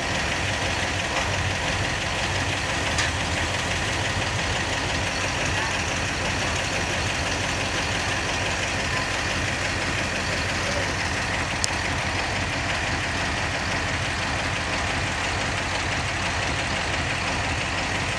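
Large engine idling steadily, with one sharp tick about twelve seconds in.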